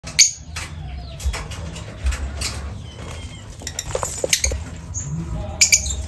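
Group of perched lovebirds giving short, sharp high-pitched chirps several times, with a few low thumps in between.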